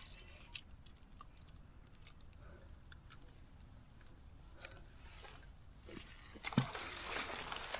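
A fishing rod and spinning reel being handled, giving scattered small clicks and ticks over a steady low rumble. Near the end a rushing noise swells, with a thump about six and a half seconds in.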